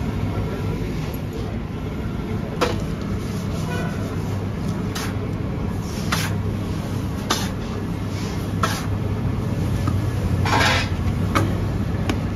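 Drum seed roaster running with a steady low hum, while freshly roasted seeds pour from its chute into a metal sieve tray. Short sharp scrapes and knocks of a scoop and the metal tray come every second or so, with one longer rasping scrape about ten seconds in.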